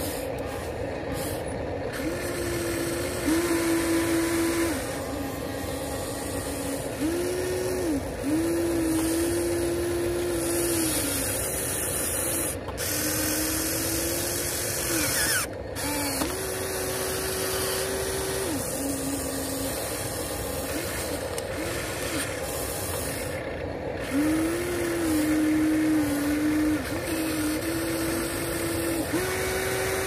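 Electric motors of a HuiNa RC excavator whining in repeated runs of one to three seconds as the boom, arm, bucket and cab swing move, each run starting and stopping with a small rise or dip in pitch.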